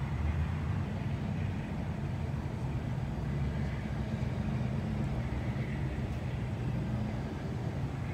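Steady low rumble of a standing train's diesel locomotive idling at a distance.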